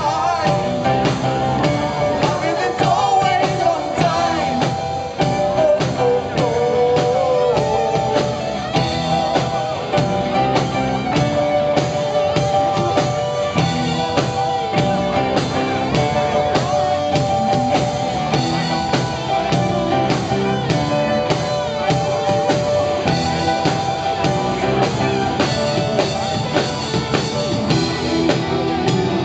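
Rock band playing live, with electric guitar, drums and singing.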